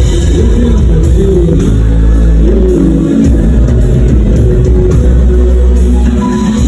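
Loud music with heavy bass and a melody line that bends in pitch.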